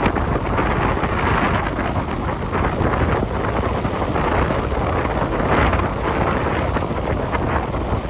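Strong wind buffeting the microphone: a loud, rushing noise with a heavy low rumble that swells and eases in gusts.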